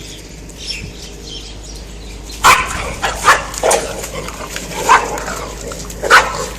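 A dog barking, about five loud barks spaced irregularly, starting about two and a half seconds in.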